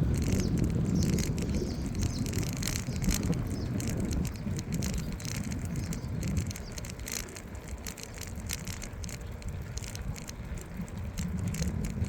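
Bicycle ride: wind rumbling on the microphone with many small clicks and rattles. The rumble eases off about halfway through and builds again near the end.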